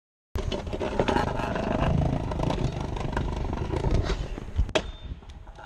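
Stunt scooter wheels rolling and clattering over brick pavers, starting a moment in, with one sharp knock near the end.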